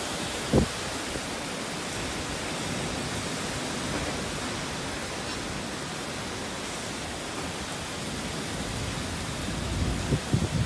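Heavy downpour: a steady, dense hiss of rain. A brief low bump about half a second in and a few more near the end.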